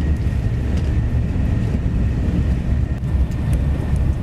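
Wind buffeting the microphone: a loud, gusting low rumble with a faint steady high tone above it.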